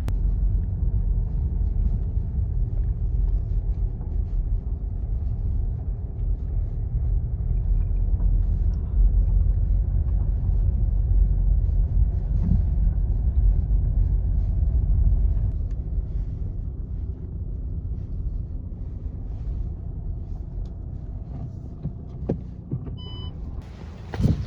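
Steady low rumble of a running motor vehicle, easing off about two-thirds of the way through, with a short electronic beep near the end.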